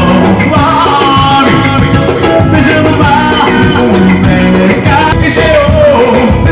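Live band playing loud, upbeat amplified dance music: a male singer singing over electric guitar, bass and conga-style percussion.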